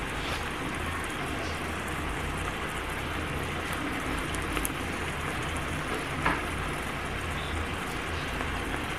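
Ground beef sizzling steadily in a hot cast-iron skillet, with a single light click about six seconds in.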